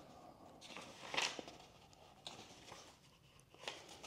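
Paper pages of a large hardcover book being turned by hand: a few short rustling swishes, the loudest about a second in.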